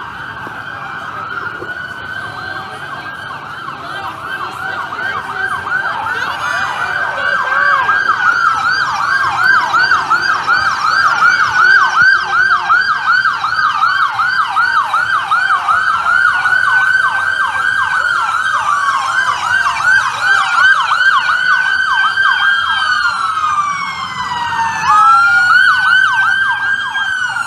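Sirens of several police vehicles arriving together, growing louder over the first several seconds. Rapid yelping sirens overlap with slower wails that rise and fall, and near the end the wails sweep down in pitch.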